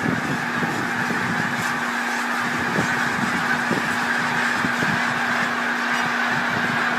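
A huge flock of snow geese calling overhead: a dense, unbroken din of many overlapping honks at a steady level.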